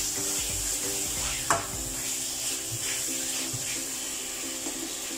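Chicken pieces sizzling in oil and chili sauce in a non-stick frying pan as they are stirred with a spatula, with one sharp tap of the spatula on the pan about a second and a half in.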